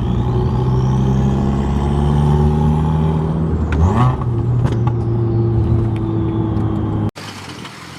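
Turbocharged Subaru WRX flat-four running loud through a side-exit exhaust, held at a steady raised speed, then revved up quickly about halfway through. The sound cuts off abruptly near the end.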